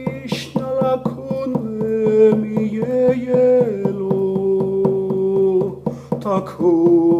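Dakota prayer song: a voice singing long held notes over a steady drum beat of about four strokes a second.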